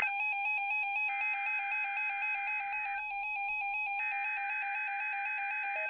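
NOAA Weather Radio receiver playing the EAS digital data header of a Required Weekly Test: two harsh buzzing bursts of about two seconds, a second apart, over a steady warbling electronic tone.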